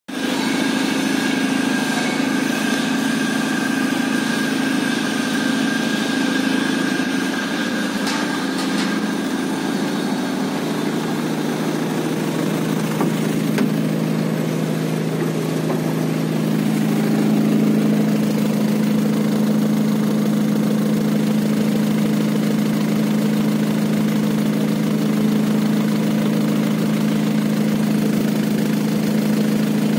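BharatBenz 1215 truck's four-cylinder diesel engine idling steadily. Past the halfway point it grows a little louder and fuller.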